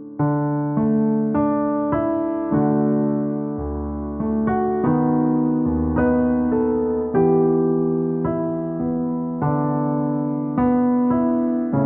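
Gentle, slow piano music: soft notes and chords struck about every half second to a second, each ringing and fading before the next.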